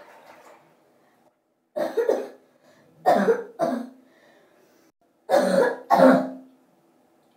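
A person coughing close by: three bouts of two coughs each, about a second and a half apart.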